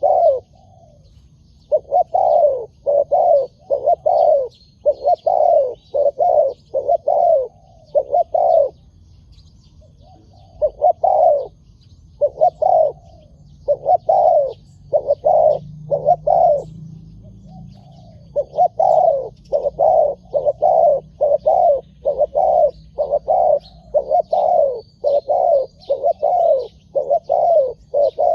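Spotted doves cooing: runs of short, loud coo notes, about two to three a second, broken by pauses of a second or two. Faint chirps of small birds sound higher up in the background.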